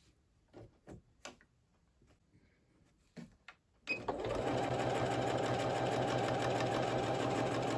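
A few faint handling clicks, then about halfway in the Necchi NC-204D computerised sewing machine starts at the press of its start/stop button. It stitches a buttonhole through leatherette with the electronic buttonhole foot, running at a steady, even speed.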